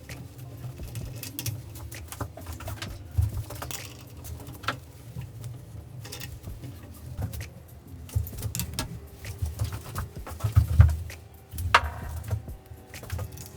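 Scattered clicks and knocks of metal bike parts being handled, over a low uneven rumble. A sharp click about twelve seconds in is followed by a short metallic ring.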